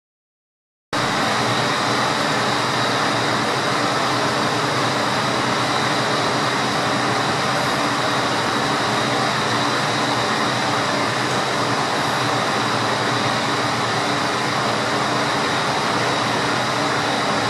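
Steady machinery hum and rushing noise with a few constant tones running through it, unchanging throughout. It starts abruptly about a second in.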